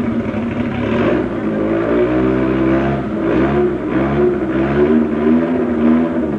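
Hill-climb racing car engine revving hard, its pitch rising and falling several times.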